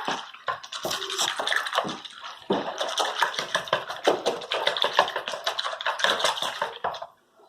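Runny, deactivated jiggly slime being stirred slowly in a container: a continuous wet squelching and sloshing that dies away near the end.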